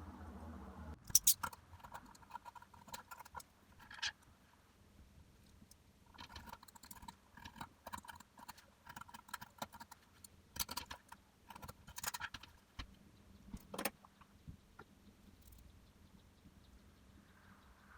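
Irregular light metallic clinking and clicking, in two clusters a few seconds long, the sharpest clicks about a second in and near the middle.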